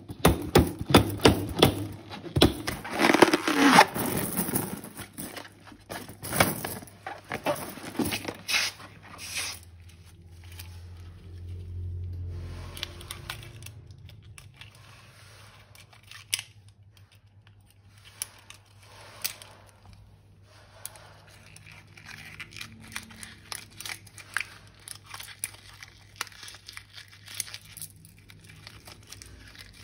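Slime being mixed and squished by hand, making a dense run of sticky crackles and small pops for the first nine seconds or so, then sparser clicks with quieter gaps.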